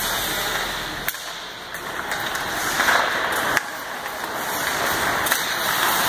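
Ice hockey play in an indoor rink: a steady hiss of skates on the ice with rink echo, and sharp cracks of stick on puck, the clearest about a second in and about three and a half seconds in.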